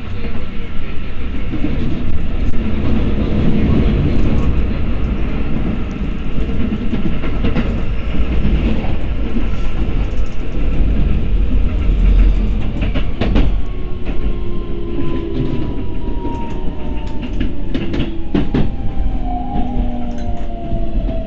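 Keikyu 1000 series electric train heard from inside the car: a steady low rumble of wheels on rail with scattered rail-joint clacks. About two-thirds of the way through, the Toyo IGBT-VVVF inverter's whine comes in and falls steadily in pitch as the train slows.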